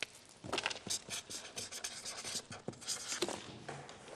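A cardboard box being handled by hands: light scratching and rubbing with many short clicks and taps.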